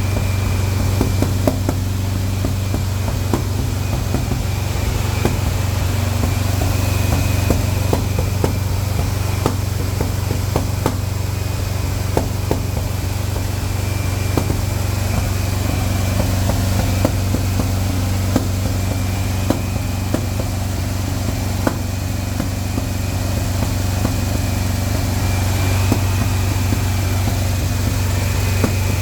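Engine on its break-in run, idling steadily with a strong low drone. Sharp ticks come irregularly throughout.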